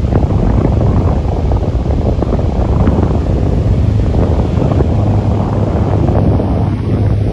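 A 2017 Delta Gold electric fan running, its airflow blowing on the microphone as steady, loud wind noise with a low rumble.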